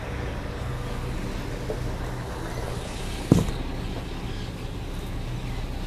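Loaded dump truck's diesel engine idling, a steady low rumble. A single sharp knock about three seconds in.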